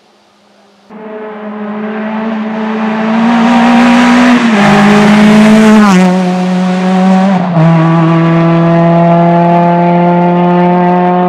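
Renault Mégane rally car's engine at full throttle, starting abruptly about a second in and climbing in revs. The note then steps down three times at gear changes before running steadily as the car pulls away.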